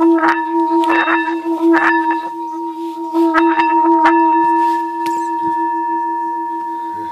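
Water-filled singing bowl being sung by rubbing its rim: a steady throbbing hum with a higher ring above it, broken by scattered crackles as the water spatters. About four seconds in the crackles stop and the bowl rings on alone, slowly fading.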